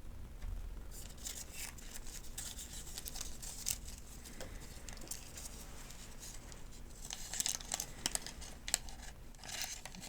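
Folded paper medication guide being unfolded and handled, with crisp crinkling and crackling paper that starts about a second in and grows busier near the end.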